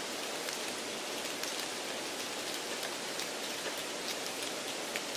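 Steady hiss with scattered faint crackles: background noise added under a listening-test recording to imitate a poor broadcast or a noisy exam room.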